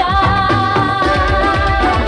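Pop song with a long held note over a steady low beat.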